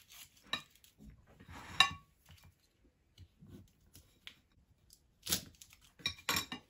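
A kitchen knife cutting through a chocolate-coated peanut cookie on a porcelain plate: a few short scrapes and clicks as the blade goes through the hardened chocolate and strikes the plate, the loudest near two seconds in and a cluster near the end.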